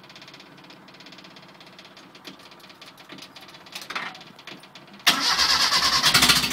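Rebuilt Mazda FE 2-litre four-cylinder engine cranking on the starter with a quick, even rhythm and a brief cough about four seconds in. About five seconds in it catches and runs loudly: its first start after the rebuild.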